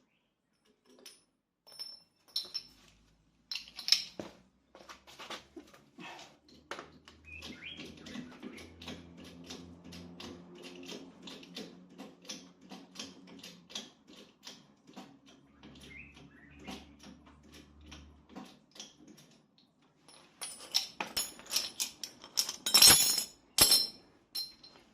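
Metal clicks and rattles of a car wheel being refitted with hand tools, with a cluster of louder knocks near the end. A low hum runs through the middle, and birds chirp in the background.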